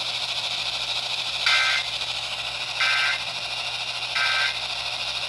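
Emergency Alert System End of Message signal: three short bursts of the buzzy SAME data tone, a little over a second apart, received over the radio with steady static hiss behind them. It marks the end of the EAS test.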